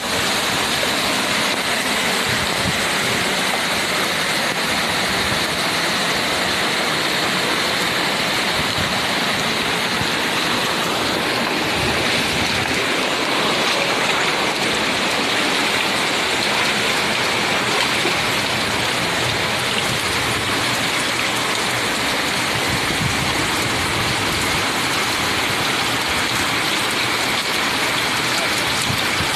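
Heavy tropical-storm downpour on flooded ground: a steady, loud hiss of rain.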